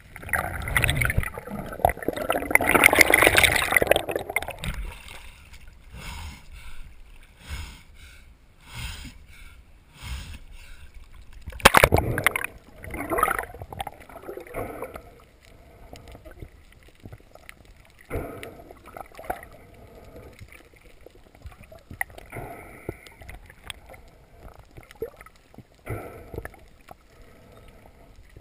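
Water sloshing and gurgling around an underwater camera as a spearfisher moves, with loud rushes in the first few seconds and again about twelve seconds in, and softer pulses about once a second between them.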